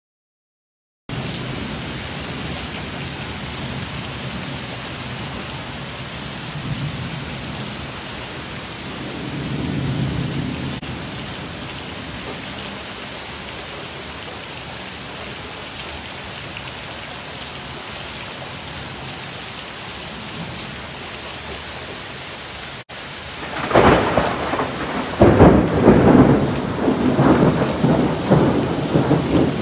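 Thunderstorm: heavy rain pouring steadily, heard from inside a screened patio enclosure, with a low roll of thunder about ten seconds in. About twenty-three seconds in, a loud crack of thunder breaks, and heavy rumbling follows in surges.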